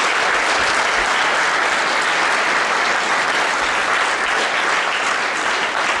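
Audience applauding steadily at the end of a performance.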